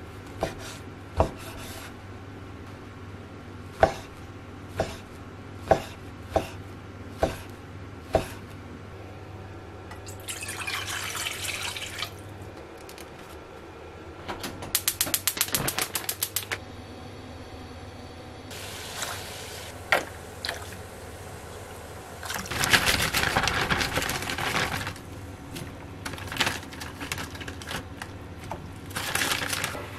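Kitchen cooking sounds: scattered sharp knocks and clicks of utensils and containers, then a rapid run of clicks about halfway through. Water runs or pours in short spells, the longest and loudest a little after twenty seconds, over a low steady appliance hum in the first part.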